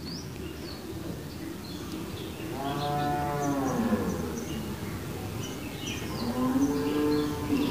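Drawn-out animal calls: one long call falling in pitch about three seconds in, and another rising near the end, over faint high bird chirps.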